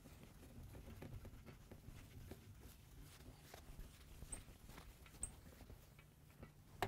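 Faint rubbing and light scuffing of a whiteboard duster wiping a whiteboard clean, over a low room hum.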